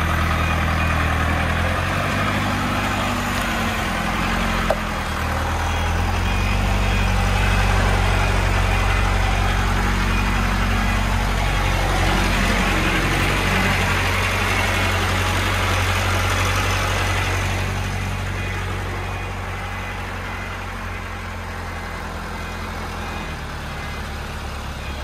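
Small dump truck loaded with sand, its engine running at low speed as it creeps through a tight gap; the engine note swells about five seconds in and eases off gradually in the last third.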